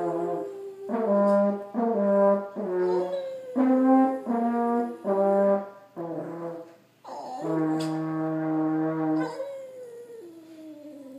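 French horn playing a string of short notes, then one long held note a little past halfway. A Boston terrier howls along, its howl left on its own near the end as a fainter wavering tone sliding down in pitch.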